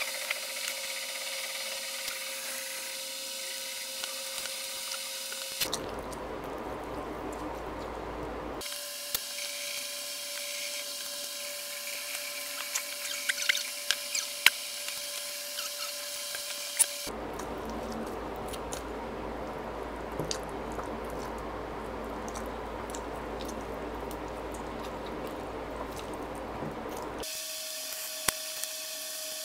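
Close-up eating sounds of a man picking and tearing cooked chicken meat off the bone by hand and eating it, with scattered sharp clicks and cracks, several close together a little past the middle. A steady hum runs underneath and changes abruptly several times where the footage is cut.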